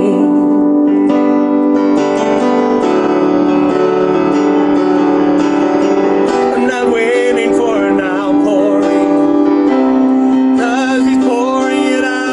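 Worship song: a keyboard plays held piano chords, and a man sings wavering phrases over them about halfway through and again near the end.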